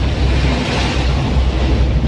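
Inside a moving Isuzu Elf minibus: steady heavy engine and road rumble, with a rush of hiss that swells and fades about a second in.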